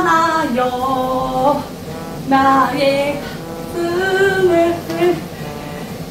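A woman singing a wordless tune in short phrases, with brief pauses between them.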